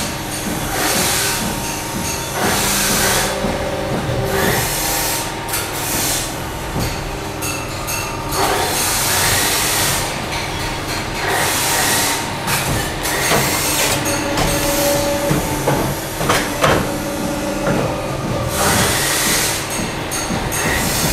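Pipe-bending machine running with a steady hum, with repeated hissing bursts every second or two and a few sharp metallic knocks as a motorcycle exhaust neck pipe is clamped and bent.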